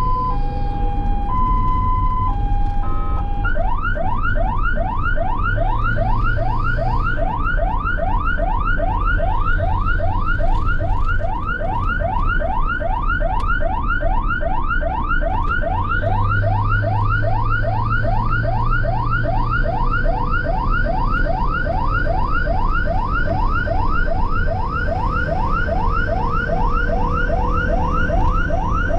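Ambulance siren sounding continuously: a two-tone hi-lo wail alternating about once a second, switching about three seconds in to a fast yelp of rising sweeps, roughly three a second. A low vehicle engine rumble runs underneath.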